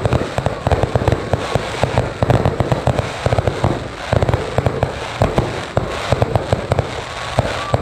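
Rapid volley of aerial fireworks bursting: a dense, unbroken string of sharp reports and crackle, many a second.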